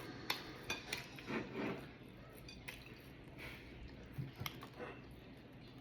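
A person eating close to the microphone: soft chewing with scattered sharp clicks and taps, most of them in the first two seconds and one more about four and a half seconds in.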